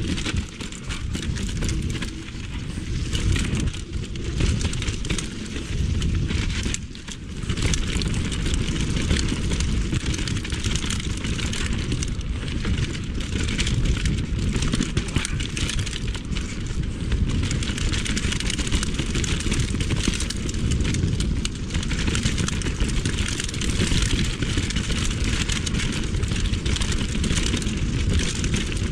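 Mountain bike ridden fast down a rough dirt and stone trail, heard from a GoPro on the rider: a steady rush of wind and tyre noise on the microphone, with constant clattering knocks and rattles from the bike over the bumps.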